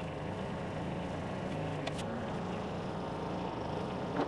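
New Holland tractor engine running steadily at idle, with a couple of faint clicks.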